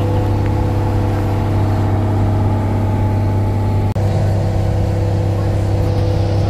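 Tour boat's engine running steadily, a loud low drone with a constant pitch, broken only by a momentary dropout about four seconds in.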